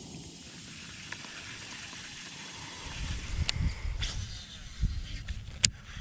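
Fishing tackle being handled on a boat deck: a rumbling of handling noise sets in about halfway through, with a few light clicks and one sharp click near the end as the rod and baitcasting reel are picked up and moved.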